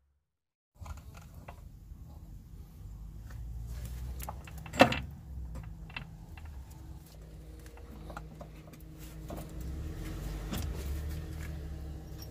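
Metal clinks and knocks as a new front shock absorber is worked down into its hub carrier clamp, with one loud sharp knock about five seconds in. A steady low hum runs underneath.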